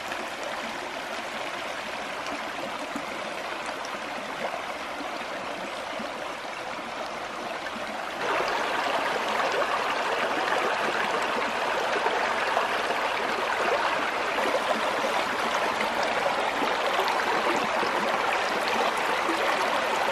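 Shallow mountain stream running over stones, a steady rush of water that gets louder about eight seconds in.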